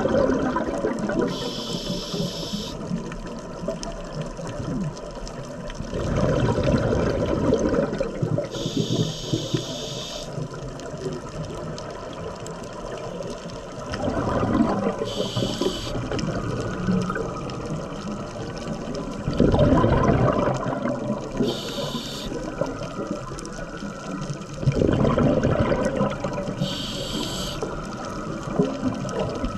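Scuba diver breathing through a regulator, heard underwater. A bubbling rush of exhaled air comes five times, roughly every six seconds, each followed by a short hiss from the regulator.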